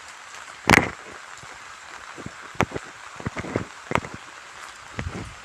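Steady hiss of heavy rain, with a handful of sharp clacks, loudest about a second in, from a spatula stirring spice paste in a pan.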